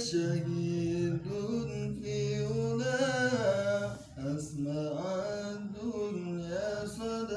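Unaccompanied male voice chanting a sholawat in long, drawn-out notes with ornamented, wavering turns in pitch.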